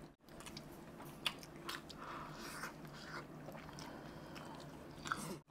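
Faint close-miked eating sounds: a man chewing a handful of rice pulao and biting into a fried chicken leg, with scattered soft clicks, the sharpest about a second in.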